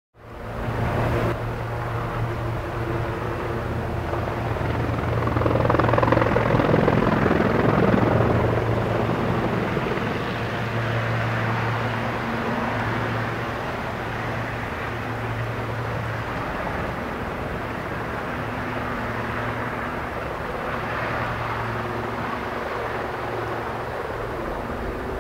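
Sikorsky S-76C+ helicopter hovering low, its main rotor and twin turbines running with a steady throb. The sound swells about six to eight seconds in, then settles to an even level.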